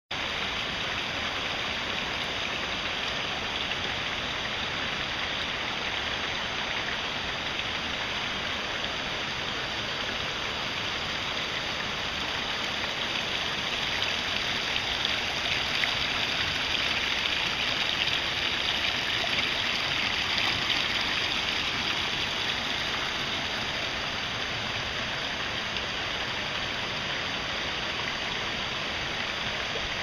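Hot-spring water pouring vigorously into a rock-lined open-air bath: a steady rush and splash of water that grows a little louder about halfway through.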